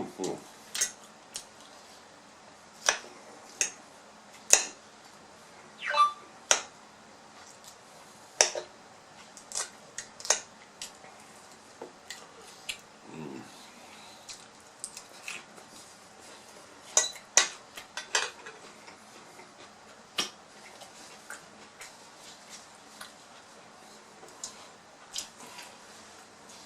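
Close-miked eating at a table: scattered sharp clicks and clinks of dishes and cutlery, several dozen spread irregularly, between quieter eating sounds.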